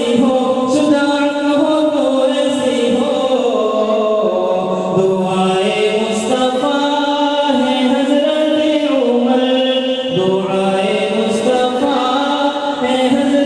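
A man singing a naat, Urdu devotional poetry, unaccompanied into a handheld microphone. He holds long notes that waver and step up and down in pitch.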